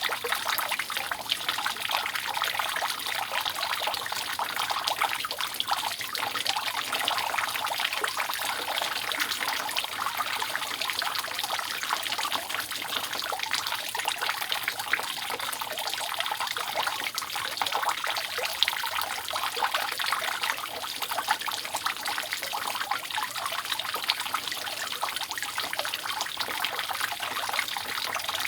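Rainwater dripping and trickling continuously off a roof: a steady, dense patter of drips with no let-up.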